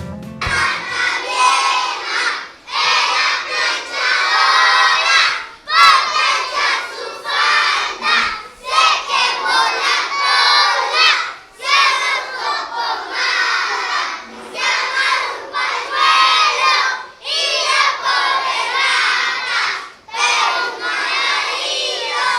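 A large group of children shouting together in loud stretches of a second or two, with short breaks between them.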